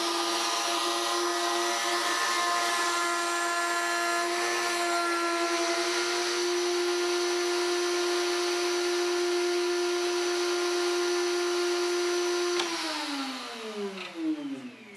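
Porter-Cable router motor in a router table running at full speed with a steady high whine. Near the end it is switched off and winds down, its pitch falling.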